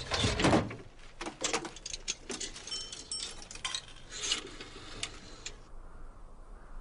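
Metallic clicks and clinks of a pay phone being used: coins going in, the receiver handled and the number dialled, with a few short ringing tones among the clicks. The clicking stops near the end.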